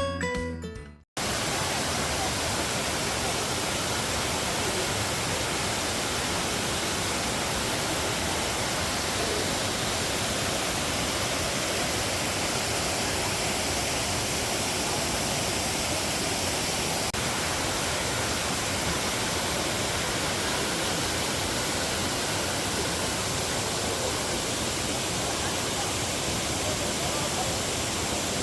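Guitar music fades out in the first second, then a waterfall's steady rushing noise, the fall running full with a lot of water.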